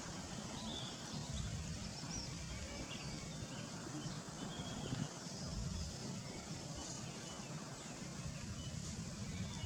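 Outdoor forest ambience: a steady low rumble, like wind on the microphone, with faint, scattered high chirps from birds.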